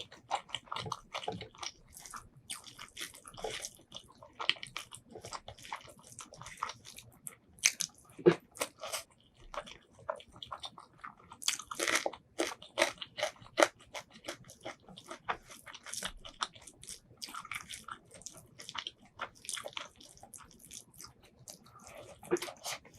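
A person chewing and biting mouthfuls of braised pork ribs and white rice close to the microphone: an irregular run of sharp wet mouth clicks and smacks, with the loudest bites about eight seconds in and again around twelve to fourteen seconds.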